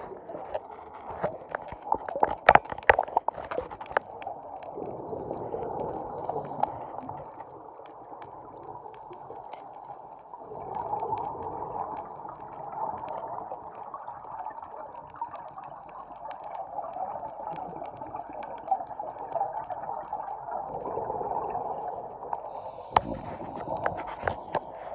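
Underwater sound of a scuba dive: the gurgling rush of exhaled regulator bubbles that swells and fades, with a faint steady high whine and scattered sharp clicks.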